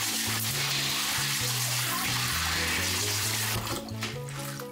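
Water running from a tap into a sink, an even rushing hiss that thins out about three and a half seconds in, over background music.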